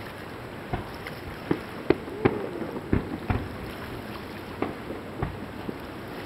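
Fireworks shells bursting in the sky, a run of about eight separate bangs spaced irregularly half a second to a second apart, over a steady rushing background noise.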